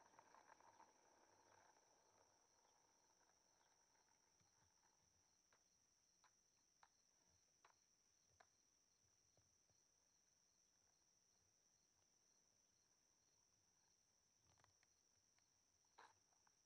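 Near silence, with a faint steady high-pitched chirring of crickets and a few faint light clicks.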